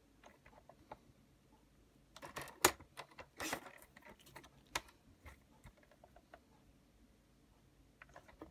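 Stampin' Up paper trimmer cutting patterned designer paper: short swishes of the blade running down the rail about two to three and a half seconds in, with a sharp click and scattered light clicks and taps as the paper and cut squares are handled.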